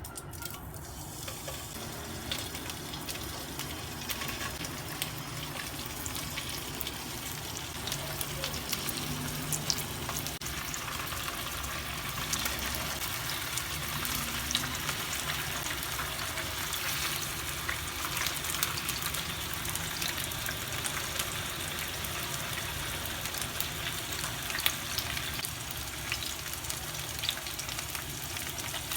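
Food frying in hot cooking oil in a pan: a steady sizzle with many fine crackles and pops.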